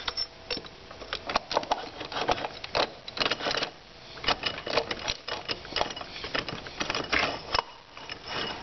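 Steel sun gear of a GM 440-T4 automatic transmission being slid into the planetary gearset and turned by hand. Its teeth and splines make dense, irregular metallic clicks and light rattles as they mesh with the pinion gears.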